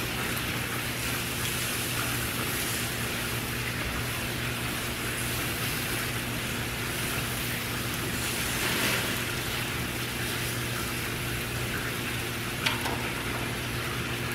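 Steaks sizzling on a gas grill, with fat dripping into the burner flames, over a steady low hum. A single sharp click comes near the end.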